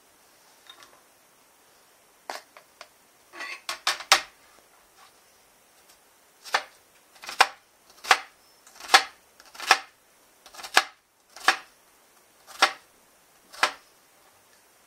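Kitchen knife cutting an onion on a plastic cutting board. A quick run of clattering knocks comes about four seconds in, then single cuts strike the board about once a second.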